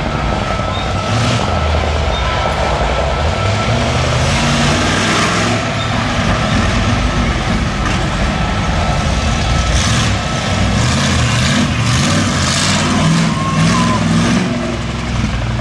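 Monster ride truck's engine running and revving as the truck crawls over junk cars and drives across the field, its note rising and falling in pitch.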